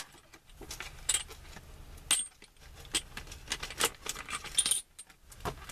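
Small metal screws and parts of a steering wheel puller kit clinking and rattling as they are handled and sorted, a scatter of sharp clicks, a few with a short high metallic ring.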